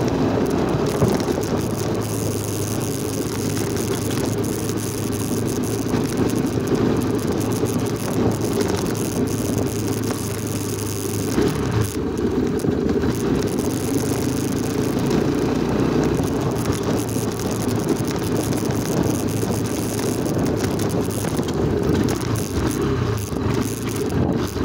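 Motorcycle riding at a steady speed along a bumpy dirt track: a steady low engine rumble without breaks.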